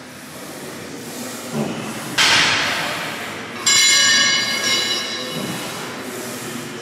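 Gym cable machine during a set: a sudden rushing hiss about two seconds in, then a sharp metallic clang that rings with a bright tone and fades over a second or so.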